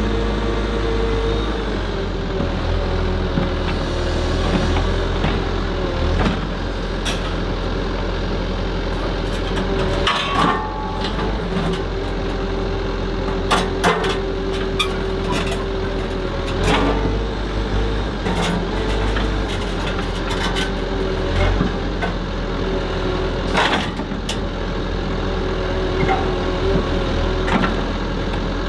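Komatsu HB215LC hybrid excavator running under work, its engine and hydraulics giving a steady hum with a held whine that wavers as the boom and TMK MultiGrab grapple move. Several sharp knocks come through it as the grapple works, the clearest about ten, fourteen and twenty-four seconds in.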